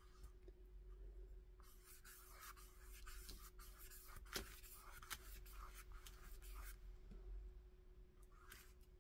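Faint scratchy swishing of a paintbrush dragging wet acrylic paint across paper in a run of strokes, with a sharp tick about four seconds in, over a faint steady hum.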